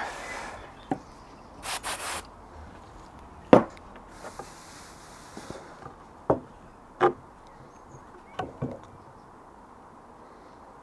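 A few puffs of breath blowing sawdust out of freshly drilled holes in wood, then scattered wooden knocks and taps as the pieces are handled.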